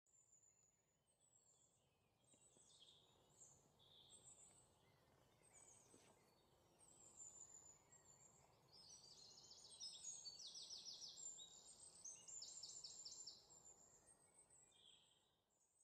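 Faint songbirds calling: many short high chirps and fast trills over a soft outdoor hiss, busiest in the middle of the stretch.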